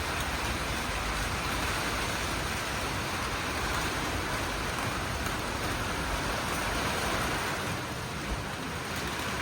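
Heavy rain pouring steadily in a Kalbaishakhi nor'wester thunderstorm, an even hiss of rain with no clear thunderclap.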